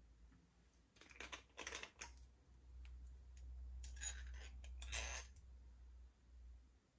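Faint, irregular clicking and tapping of small hard objects being handled, in two small clusters, over a steady low hum.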